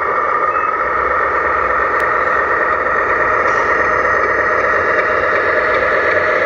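Steady simulated truck-engine running sound from a 1/14-scale radio-controlled tractor truck's sound unit as the model Hino 700 tractor unit drives forward with its container trailer, heard thin and mid-pitched through the model's small speaker.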